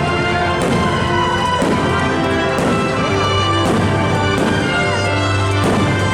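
Loud show music: many held notes over a low bass, with a strong beat about once a second.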